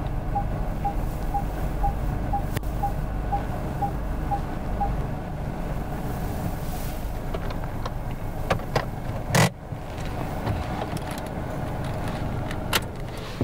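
Parked car with its engine idling in a steady low rumble. About ten short, evenly spaced beeps sound over the first five seconds, and a few clicks and one loud thump come about nine seconds in.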